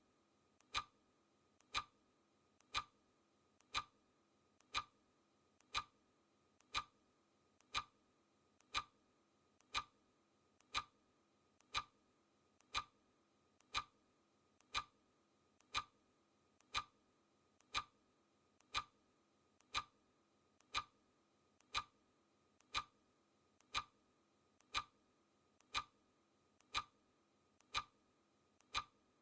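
Clock-style ticking sound effect of a countdown timer, one sharp tick every second, each led by a fainter click just before it.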